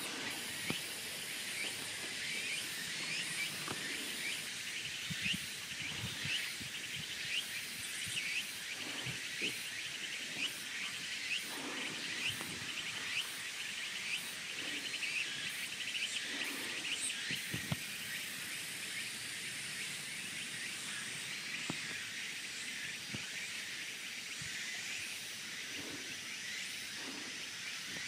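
Outdoor ambience of a steady, rapidly pulsing insect chorus with a few bird chirps, broken by scattered light knocks.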